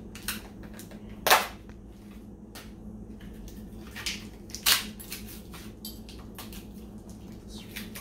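Small metal hardware handled by hand: scattered sharp clicks and clinks, the two loudest about a second in and just before five seconds.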